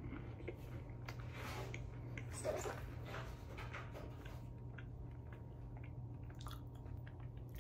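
Faint chewing and crunching of a green-onion cracker, with scattered small clicks, over a low steady hum.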